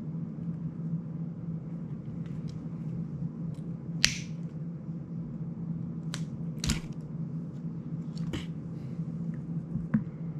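A handful of short, sharp clicks and taps from fingers working on a small FPV drone and its parts, the loudest about four seconds in, over a steady low hum.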